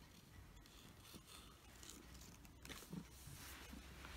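Near silence with faint rustling and scratching of fabric on carpet, with a soft knock about three seconds in.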